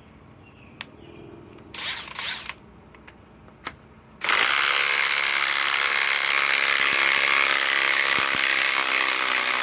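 RIDGID 1/2-inch subcompact right-angle impact wrench, on a 3 Ah Octane battery, hammering loud and steady. It starts about four seconds in and runs for the rest of the time. Before that come a few sharp clicks and a brief rustle of handling.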